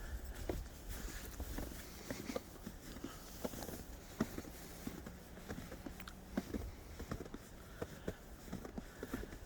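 Footsteps crunching in snow: light, irregular crunches and taps.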